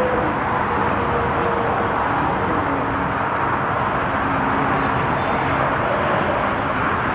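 Steady, loud rushing engine noise with faint drifting tones beneath it, without a clear start or stop.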